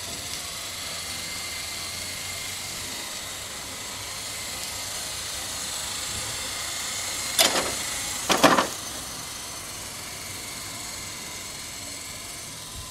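Electric mobility scooter driving along, its motor giving off a steady high whine. Two short, sharp knocks come a second apart, a little past halfway.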